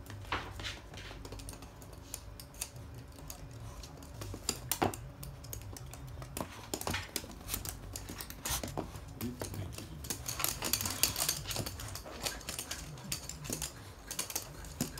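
Toy poodles' claws clicking and tapping on a hard, glossy floor as the dogs move about: an irregular patter of small clicks, busiest about ten to twelve seconds in.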